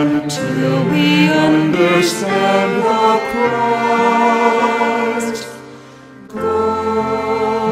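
A man and a woman singing a hymn together in unison, holding long notes, with a short break for breath about five and a half seconds in before they go on.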